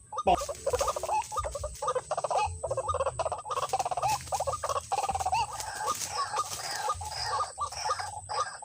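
White-breasted waterhens calling: a dense run of rapid, repeated croaking 'uwak' notes.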